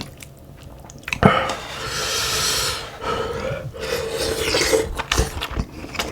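A person slurping hot, spicy cod-head stew broth, starting suddenly about a second in, with a second slurp or gulp after it.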